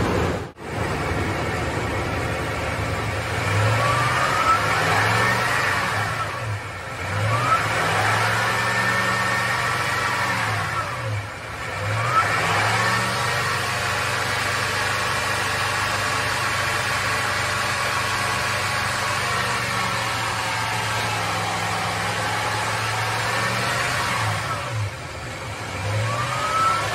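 Toyota Tundra 5.7-litre V8 running and being revved up and down, the pitch rising and falling about four times with steadier running in between. The revving pushes coolant through to bleed air out of the freshly refilled cooling system.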